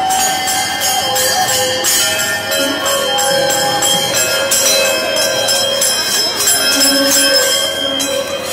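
Many bells ringing and clashing rapidly without a break, with a few long held tones beneath them.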